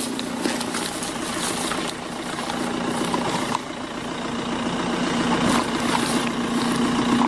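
A vehicle engine idling steadily with a fast, even beat, with scattered short clicks and rustles over it.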